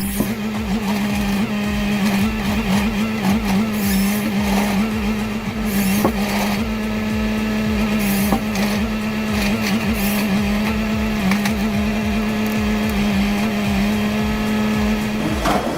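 Heavy machinery running: a steady mechanical hum with a pulsing low rumble and scattered clattering knocks, changing shortly before the end.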